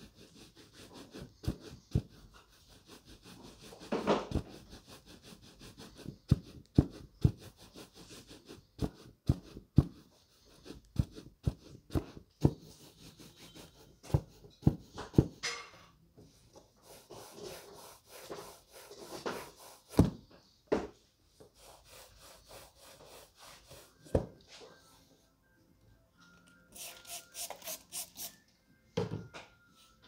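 Shoe-shine cloth buffing leather loafers: quick rubbing strokes of the rag over the leather, broken by many sharp, irregular pops as the taut cloth snaps. Near the end comes a short run of fast, brisk strokes.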